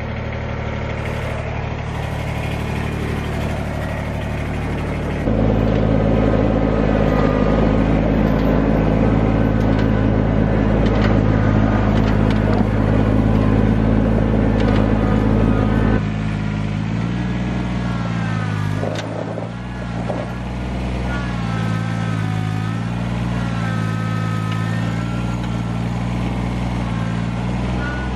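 Kubota compact tractor's diesel engine running, steady at first and then throttled up and louder about five seconds in as it drives. After about sixteen seconds the engine note drops, then rises and falls over and over while the front loader is worked into a pile of wood mulch.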